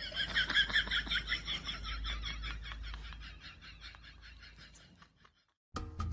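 An animal's rapid run of short, high calls, about six a second, fading away over about five seconds above a low hum.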